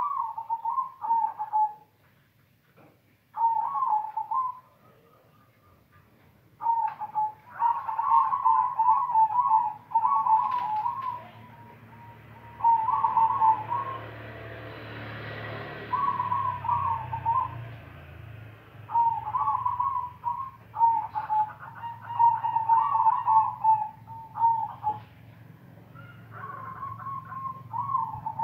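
Caged zebra dove (perkutut) cooing its rhythmic multi-note song again and again, in phrases of one to several seconds with short pauses between. Around the middle a low rumble and a rushing noise swell and fade behind it.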